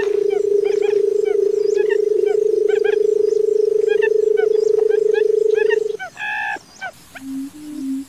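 Barred buttonquail's low drumming call, a loud steady hum held until about six seconds in, with many short higher chirps over it. After a brief higher call, a series of short low hoots begins, about two to three a second.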